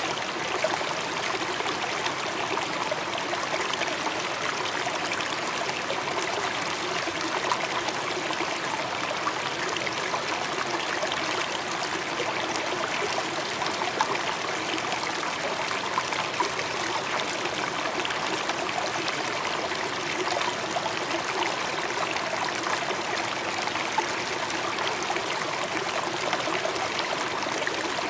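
Steady rush of churning, splashing water below a ferry's deck, without pitch or rhythm.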